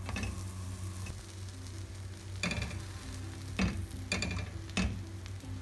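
Buttered bread toasting on a flat tawa, sizzling faintly, while a spatula scrapes and knocks against the griddle in about five short strokes as the sandwich is turned over. A steady low hum runs underneath.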